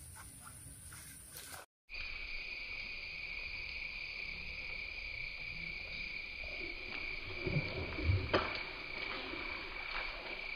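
Steady high-pitched drone of swamp insects. About two seconds in, the sound drops out briefly and comes back as a louder, lower-pitched insect drone, with a few soft knocks and a click near the middle.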